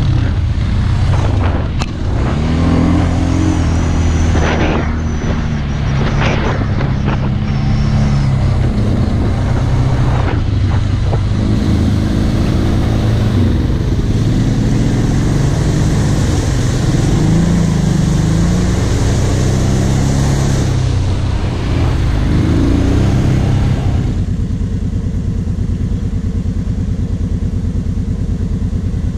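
Quad bike engine running under riding load, its pitch rising and falling with the throttle, with water and mud splashing under the wheels as it crosses a flooded trail from about halfway in. Near the end the sound changes abruptly to a steady engine idle.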